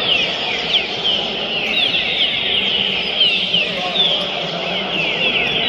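Many green-winged saltators (trinca-ferros) singing at once, their short downward-sliding whistled phrases overlapping without a break.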